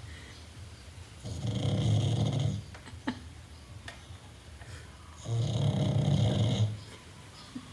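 A sleeping pug snoring: two long snores about four seconds apart, each lasting about a second and a half, with quieter pauses between.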